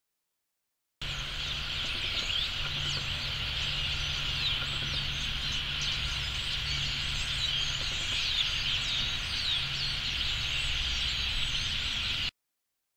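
Large migrating flock of American robins calling, a dense chorus of many overlapping high calls over a steady low rumble. It starts abruptly about a second in and cuts off near the end.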